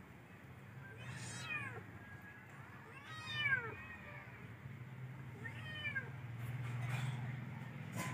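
A domestic cat meowing three times, each meow a drawn-out call that rises and falls in pitch, over a steady low hum.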